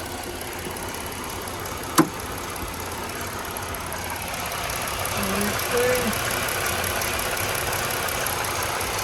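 One sharp clank about two seconds in, over a steady rushing, vehicle-like noise.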